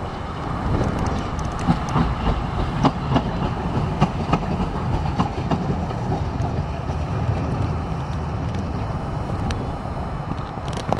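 Light-rail tram passing close by, its steel wheels rumbling on the track with a run of sharp clicks over the rail joints, strongest in the first half.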